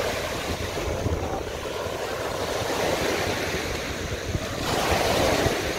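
Small waves breaking and washing up a sandy beach, with wind buffeting the microphone. The wash swells louder near the end.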